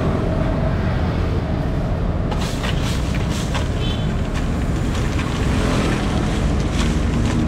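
Ice cubes in a cooler clicking and crunching as a gloved hand digs into them, over a steady low rumble.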